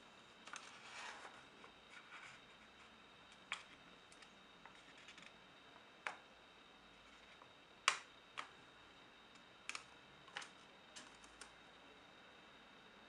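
A small sheet of paper being folded and creased by hand: a brief rustle of the sheet near the start, then scattered sharp, crisp ticks and taps as the folds are pressed flat against the table. The loudest tick comes about two thirds of the way through.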